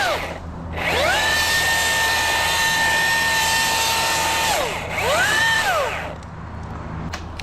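Cordless electric chainsaw cutting a branch: the motor whines up to speed, holds a steady pitch for about three and a half seconds, then winds down, followed by one shorter rev-up and wind-down.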